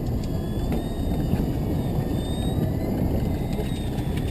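Steady low rumble of a fishing boat's motor running at trolling speed.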